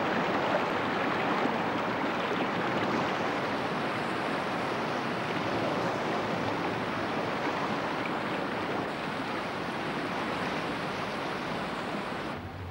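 Steady rush of whitewater river rapids, which cuts off abruptly near the end.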